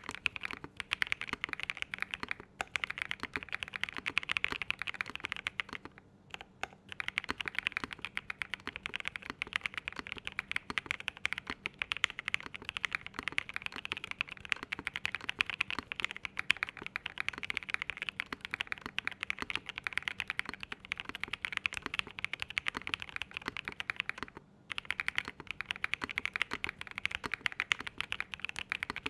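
Continuous fast typing on a Zoom75 mechanical keyboard with WS Morandi switches on a flex-cut aluminium plate, a dense run of keystrokes with a few brief pauses. The switches give a fairly low-pitched sound between thock and clack.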